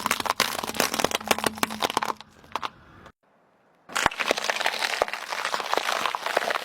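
Crispy potatoes crunching, in two bursts of dense cracking with a short break between.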